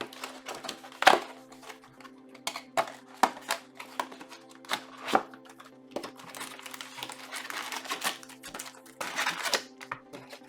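A trading-card box's plastic wrap and cardboard being handled and worked open, making irregular crackles and sharp clicks, with a denser stretch of crinkling about six to ten seconds in. Steady background music plays underneath.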